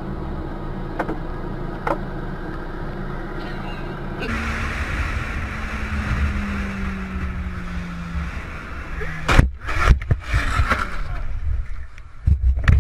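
Car engine hum and road noise from inside a moving car. After a sudden change, there is louder road and wind noise with an engine note slowly falling in pitch. Then come a few loud bangs in quick succession, the impacts of a road collision.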